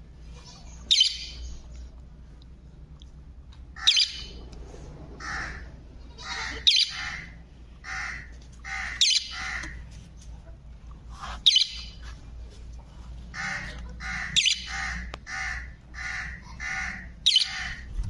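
Parakeet calling over and over: sharp, loud screeches every two to three seconds, with softer, shorter calls in between.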